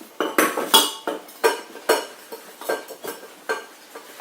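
Kitchenware clattering: a string of sharp clinks and knocks, about two a second, loudest in the first second.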